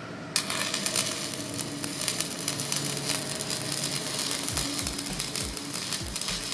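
Stick-welding arc struck about a third of a second in, then a steady dense crackle and sizzle as the electrode burns and lays a continuous bead.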